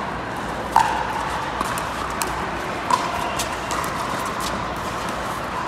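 Pickleball rally: paddles striking the hollow plastic ball with sharp, ringing pops, the loudest about a second in and another about halfway through, with lighter clicks between, over steady background noise.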